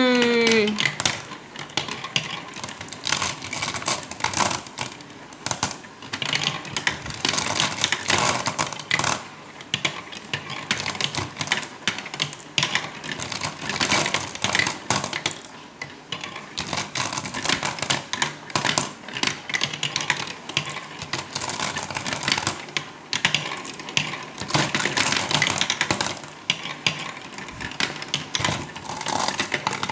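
Many small marbles clicking and rattling as they roll down a toy marble-run track, a fast, irregular clatter that keeps going.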